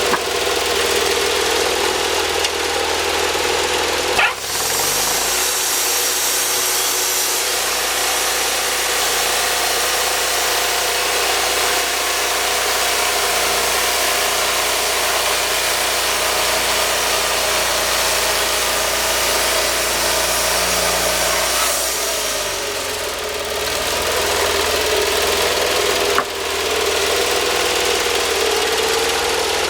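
Wood-Mizer band sawmill's engine running steadily. About four seconds in a click is followed by a second motor spinning up with a rising hum. It runs steadily, winds down with a falling hum at about twenty-two seconds, and another click comes a few seconds later.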